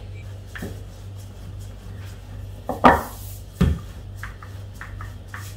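Handling of fondant and a wooden rolling pin on a stone countertop covered with plastic wrap: a few sharp knocks of the pin against the counter, the loudest about three seconds in, then lighter taps as rolling begins. A steady low hum runs underneath.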